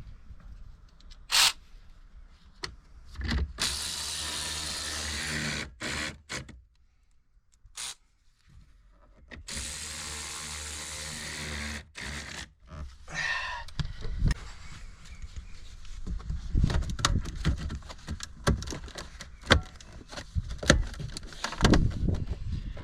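A small electric motor runs twice, each time for about two seconds with a steady whine, then irregular clicks and knocks of parts being handled follow.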